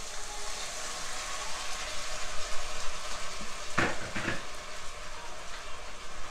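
Pork pieces sizzling steadily in a pot on the stove as a little water is poured in from a kettle. Two short knocks come about four seconds in.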